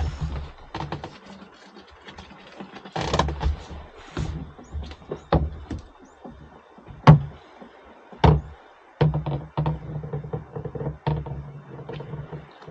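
Irregular knocks and clicks of fishing tackle being handled in a small open boat while a hook is rebaited, with a low steady tone for a few seconds near the end.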